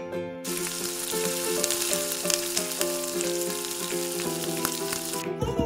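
Donuts deep-frying in hot oil in a pan: a steady sizzle with many small crackles, which starts abruptly about half a second in and cuts off near the end, over soft background music.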